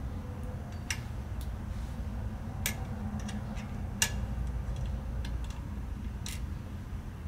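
Scattered light metallic clicks and taps from fitting a brake-shoe hold-down pin, washers and coil spring to the lower shoe on a Ford tractor's drum-brake backing plate, with the sharpest clicks about one, two and a half, four and six seconds in.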